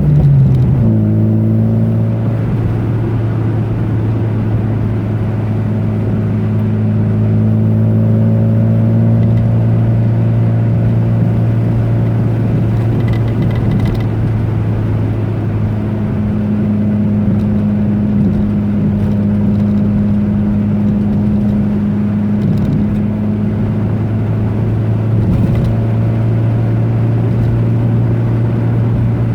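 Car engine heard from inside the moving car: the engine note drops right at the start as the revs come down, then holds steady at cruising speed over road noise, with a few faint rattles.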